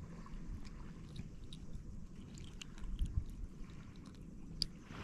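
Small clicks and squishy handling noises as fingers work a hook out of the mouth of a small honeycomb grouper, over a steady low rumble. A dull thump comes about three seconds in and a sharp click near the end.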